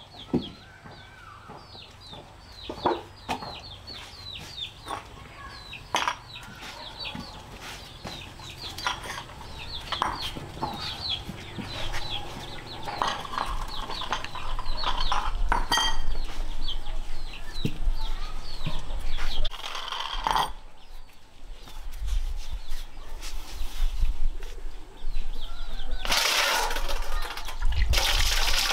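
Chickens clucking, with many short high calls falling in pitch throughout. Near the end a rush of running water starts.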